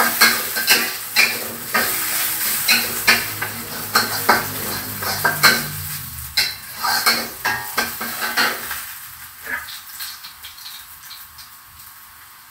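Sliced garlic and ginger sizzling in hot oil in a wok, with a spatula scraping and knocking against the pan in quick, irregular clatters. The stirring stops about eight or nine seconds in, leaving a fainter sizzle.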